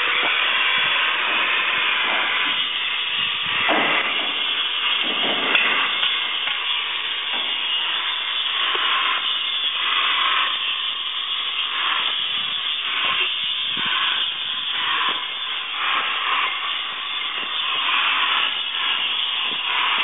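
Large greenhouse exhaust fan running, a steady loud hiss of rushing air that swells and dips unevenly.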